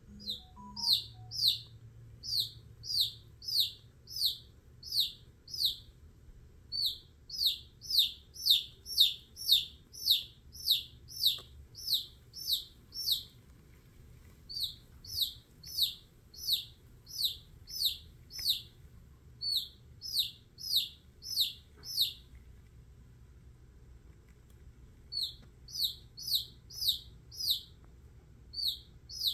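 Baby chick peeping: loud, repeated falling peeps about two a second, in runs broken by short pauses, with a longer silence about three-quarters of the way through.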